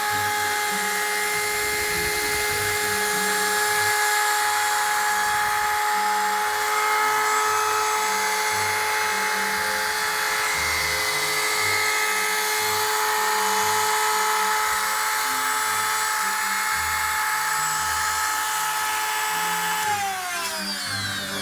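Small hobby rotary tool spindle of a homemade CNC PCB drill running with a steady high whine, over an uneven low hum. Near the end its pitch falls as it spins down.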